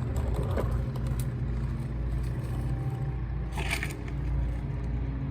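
Oil-pan drain plug being screwed back in and tightened with a 14mm wrench: a few light metallic clicks and a brief rattling scrape about three and a half seconds in, over a steady low hum.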